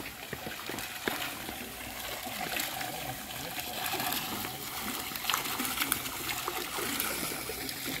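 Running water trickling and splashing steadily.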